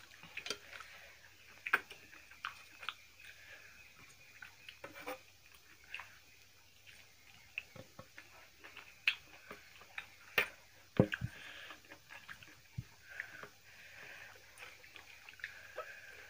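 Two people eating rice and mutton curry by hand: chewing and mouth smacks with scattered sharp clicks and clinks of stainless-steel plates and bowls, the loudest about ten to eleven seconds in.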